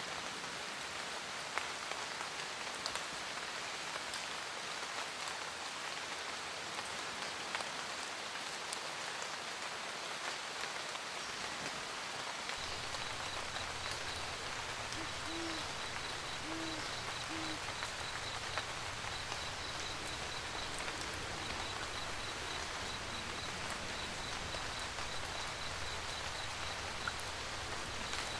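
Steady rain with scattered single drops ticking. About twelve seconds in, a low steady rumble and a fast, high-pitched pulsing chirp join. An owl hoots three times shortly after.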